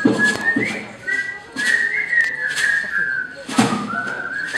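A person whistling a melody over a steady percussion beat of sharp taps and low thumps, about two hits a second.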